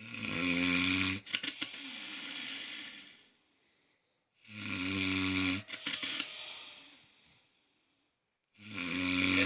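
A sleeping person snoring: three loud snores about four seconds apart, each a low buzzing drone of about a second that trails off into a softer breath.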